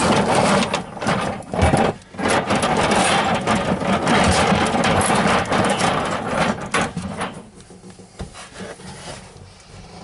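Steel coil springs clattering and scraping against each other in a plastic tote as a hand rummages through the pile. The rattling dies down to a quieter shuffle about seven seconds in.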